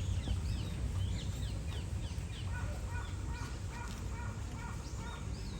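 Birds calling: many short, quick falling chirps, joined midway by a run of about eight short, evenly spaced lower calls, over a steady low rumble.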